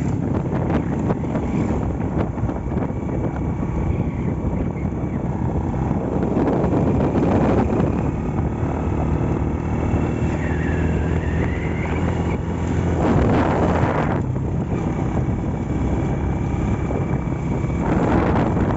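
Honda Astrea Grand's small single-cylinder four-stroke engine running steadily on the road, its freshly restored engine on a test ride, with wind rushing over the microphone and louder gusts about two-thirds of the way through and near the end.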